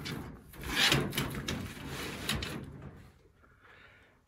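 Rough scraping and rubbing, loudest about a second in and fading away over the last second or so.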